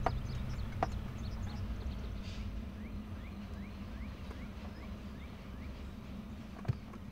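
Car running on the road, heard from inside the cabin as a low steady rumble that fades gradually. Midway there is a faint series of short rising chirps, about two a second.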